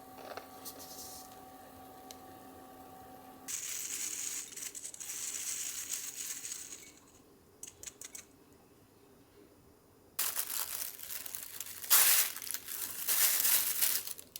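Plastic bag crinkling and rustling in irregular bursts, as snowball cookies are shaken in it to coat them with powdered sugar; the loudest crinkling comes in the last few seconds. At the start a steady hum runs and stops about three and a half seconds in.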